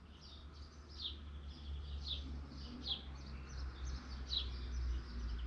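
Birds chirping: a run of short, high, falling chirps every half second or so, over a low, steady rumble.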